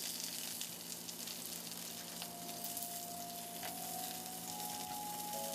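Chicken satay skewers sizzling on a grill pan, a steady crackling hiss. A few soft held notes of background music come in about two seconds in.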